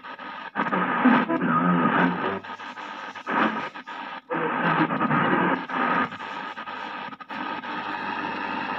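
Castor 9-band radio's speaker playing shortwave while its tuning wheel is turned: hiss and static with broken snatches of broadcast voices that cut in and out as it passes between stations.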